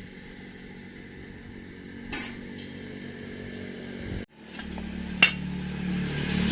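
A steady engine-like mechanical hum. It breaks off abruptly about four seconds in and comes back louder, with one sharp click about a second later.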